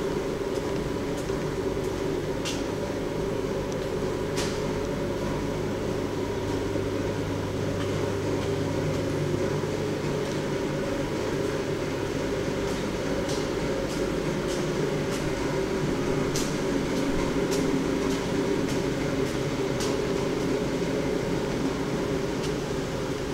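Steady low hum of greenhouse air-handling fans, with a few scattered faint clicks.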